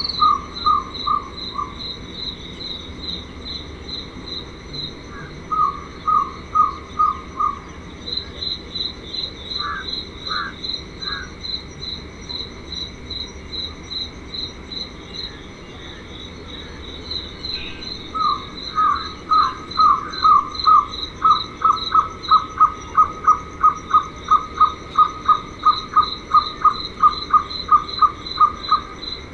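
Jungle owlet calling: short runs of four or five repeated notes, then from about two-thirds of the way in a long, even series that grows louder. Crickets chirp alongside in quicker pulses, over a steady insect drone.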